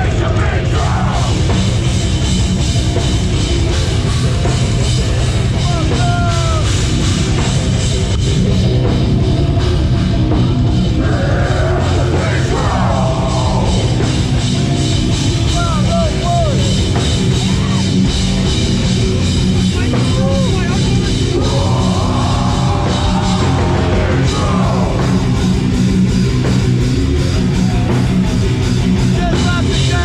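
Hardcore band playing live through a festival PA: heavily distorted guitars and drums, loud and unbroken, with shouted voices coming in at times over the top.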